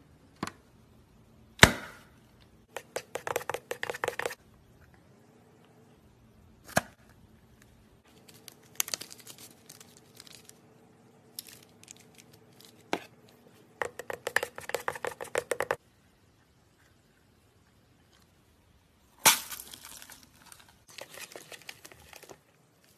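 Close-up slime handling: sharp snips and snaps as scissors cut into a slime-filled stress ball, and bursts of rapid crackling and popping as foamy slime is squeezed and stirred. One loud snap comes about a second and a half in, and there is a pause of a few seconds in the second half.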